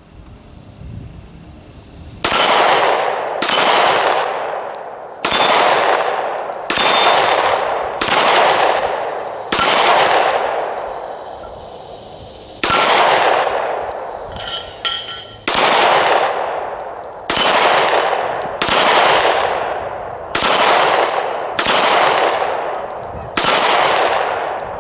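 Sig Sauer P226 Enhanced Elite 9mm semi-automatic pistol fired shot after shot, the first about two seconds in, then roughly one every second, each crack trailing off in a long echo. There is a pause of about two seconds midway through the string.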